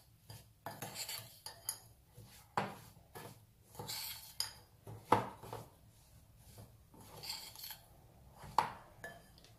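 Metal spoon stirring a gritty ground-spice masala moistened with mustard oil in a glass bowl: irregular scraping, with a few sharper clinks of spoon against glass.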